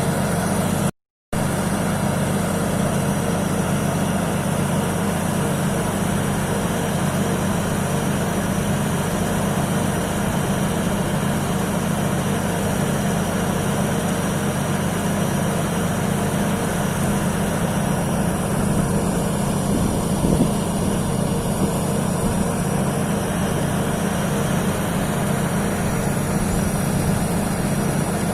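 Rice combine harvester's engine running steadily, a low even hum with mechanical noise over it. The sound cuts out for a moment about a second in.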